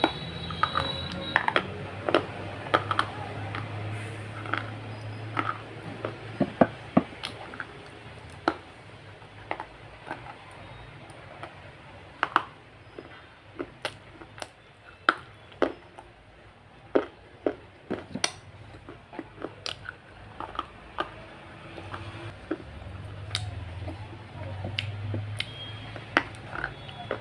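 Close-up crunching and chewing of hard, chalk-like white blocks: a run of sharp, dry cracks, a few a second, as pieces are bitten off and ground between the teeth.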